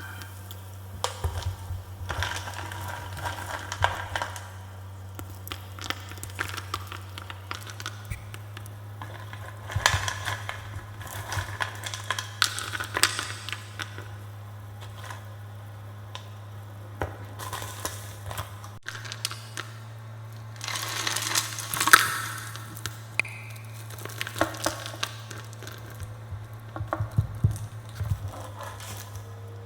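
Gym chalk being crushed and crumbled, in bursts of crackling crunches every few seconds, the loudest about two-thirds of the way through, over a steady low hum.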